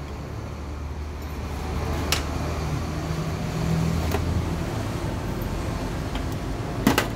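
Steady low mechanical rumble with a brief hum in the middle, broken by a few sharp metallic clicks of parts being handled on a steel bench vise; the loudest click comes near the end.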